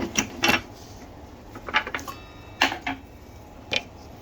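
A few separate sharp clicks and knocks, with one short rattle, from parts of a table saw being handled and adjusted; the saw's motor is not running.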